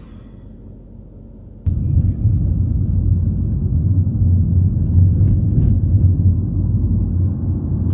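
Steady low road and engine rumble inside a moving car's cabin. It starts abruptly about a second and a half in, after a faint low hum.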